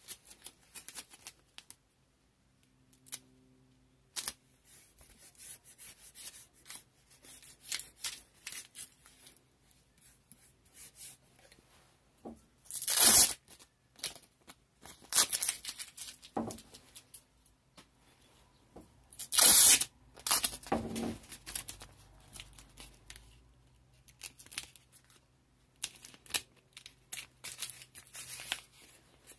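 Masking tape being pulled off the roll: two loud rips, each about a second long and about six seconds apart. Between them are quieter rustles and crinkles of the tape being handled and pressed down.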